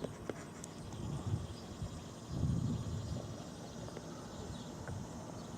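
Low rumbling outdoor background noise with a few faint clicks, swelling briefly about two and a half seconds in; the siren is not sounding.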